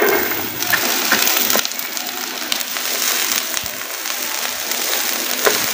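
Cabbage sizzling as it fries in hot ghee in a frying pan, with scattered clicks and scrapes of a spatula stirring it.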